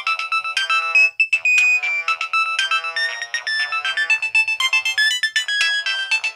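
Nokia 1200 mobile phone playing a ringtone: a quick electronic melody of short notes, often several sounding together, with no bass. There is a brief break about a second in.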